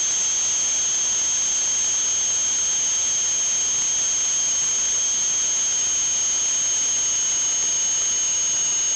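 A steady, loud, high-pitched hiss with a thin whistling tone through it, unchanging throughout.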